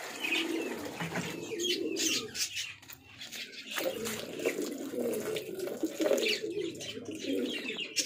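Domestic pigeons cooing over one another, with short higher chirps mixed in.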